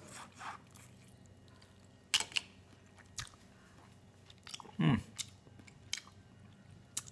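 A person chewing boiled crawdad tail meat close to the microphone: scattered short wet clicks and smacks of the mouth, with one louder, low-pitched sound about five seconds in.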